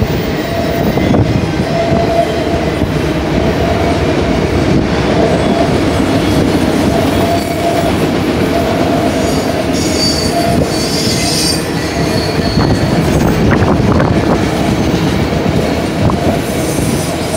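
Steel wheels of autorack freight cars rolling past on the rails, a steady rumble and clatter. There is a brief high squeal from the wheels about two-thirds of the way through.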